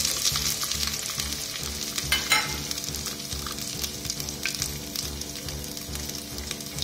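Cumin seeds and freshly added ginger sizzling and crackling in hot mustard oil in a pressure cooker. There is one louder click about two seconds in.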